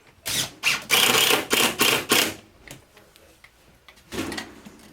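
Power screw gun driving mounting screws through a replacement window's frame: a run of short bursts lasting about two seconds, then one shorter burst near the end.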